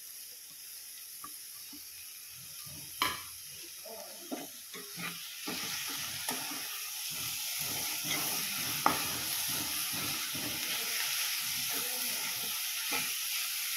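Chopped spinach sizzling in hot oil in a kadhai while a steel spatula stirs it, scraping and tapping against the pan; the sizzle grows louder about five seconds in. A sharp knock of a utensil on the pan about three seconds in is the loudest sound.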